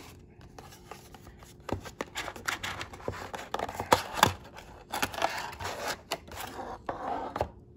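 A clear plastic bag crinkling and a cardboard box rustling while a die-cast toy car is unwrapped by hand. Scattered clicks and scrapes run through it, and it falls quiet shortly before the end.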